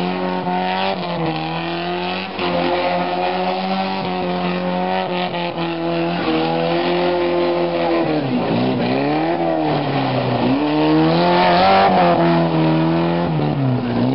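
Toyota Starlet's engine revving hard as the car drifts around a cone, with tyres squealing on the tarmac. The revs dip sharply twice in the second half and climb back up each time.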